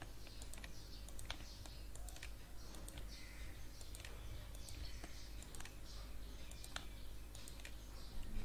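Faint, scattered clicks of a computer mouse, about one or two a second, over a low steady hum.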